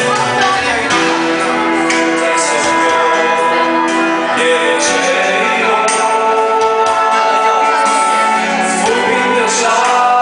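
A person singing a Mandopop ballad over a backing track.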